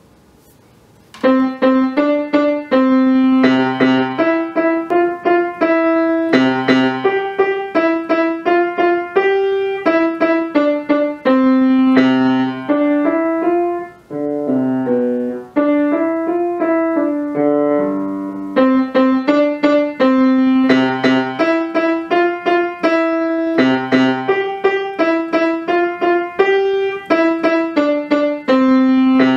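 Acoustic grand piano playing a simple beginner's solo: short notes in an even rhythm, starting about a second in, with a softer passage around the middle.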